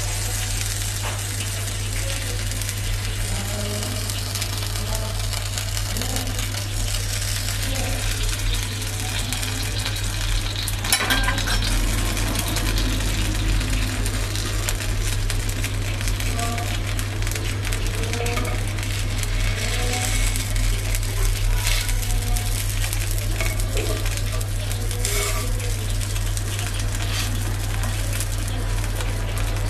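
Patisapta crepe batter sizzling gently in a nonstick pan. A metal spatula scrapes and taps the pan a few times as the crepe is folded and rolled, most clearly about eleven seconds in. A steady low hum runs underneath.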